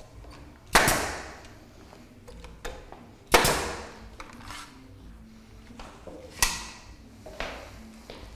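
Three loud, sharp knocks roughly two and a half to three seconds apart, each with a long echoing tail, and fainter knocks between them.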